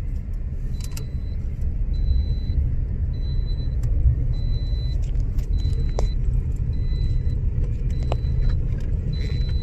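Car cabin with a steady low rumble from the running vehicle, and the seatbelt reminder beeping in short high tones about once a second because a seatbelt is unbuckled. A couple of sharp clicks sound about two-thirds of the way through.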